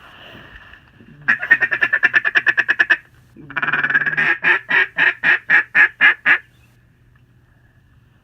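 Mallard duck call blown by a hunter to draw in ducks flying overhead: a fast chattering run of quacks, then a long drawn note dropping into a steady cadence of loud quacks that stops about two thirds of the way through.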